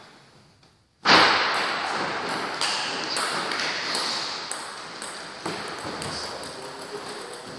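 Celluloid/plastic table tennis ball clicking on hard surfaces again and again at an uneven pace, each hit ringing in a large hall. The sound is nearly silent for about the first second, then cuts in suddenly with a loud rush of room noise.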